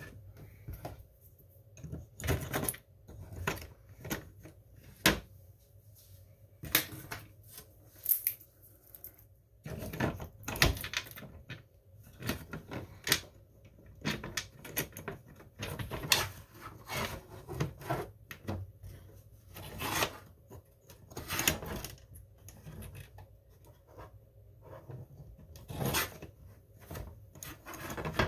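Irregular clicks, knocks and rubbing from a hand-worked 3D-printed plastic flap linkage as the lever pushes the rod and the Fowler flap swings down and back up.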